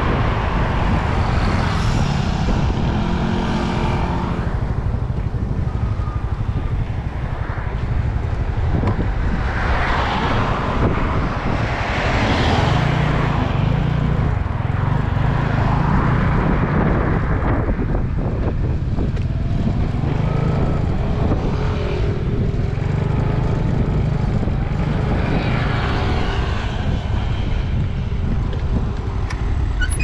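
Wind buffeting the microphone on a moving motor scooter, a steady low rumble over the scooter's small engine running. Traffic swells and fades a few times as other vehicles pass.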